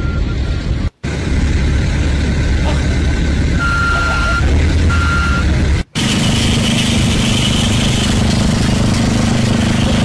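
Steady engine and machinery noise with two short high beeps about four and five seconds in. The sound cuts out briefly twice, about a second in and about six seconds in, after which a steady engine hum with a held tone continues.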